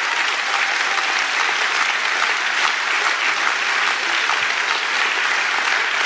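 Audience applauding steadily: a hall full of hands clapping at an even level.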